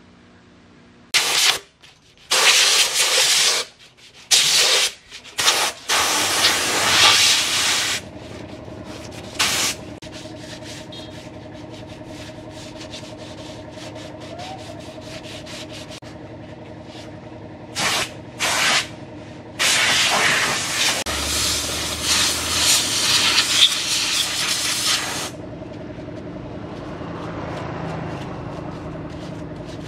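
Compressed-air blow gun blasting in bursts of hiss, some brief and some several seconds long, blowing out an engine's fuel tank, over a fainter steady hum.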